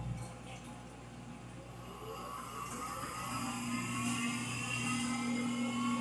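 Frigidaire Gallery GLTF1670AS1 front-load washer speeding up into its final spin: a steady low hum with a whine that rises in pitch from about two seconds in, growing louder. The whine comes from bad motor bearings.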